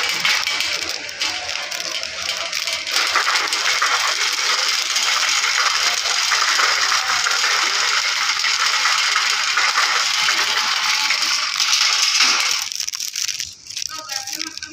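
Loud, continuous rustling and scraping of cloth and straps rubbing close to the microphone, with a crackly texture. It stops abruptly about twelve and a half seconds in.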